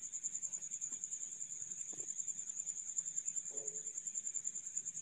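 A cricket chirping steadily in a fast, even high-pitched trill, with a few faint soft knocks underneath.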